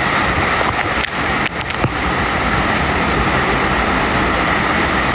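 Hurricane wind blowing steadily, with a brief lull about a second and a half in.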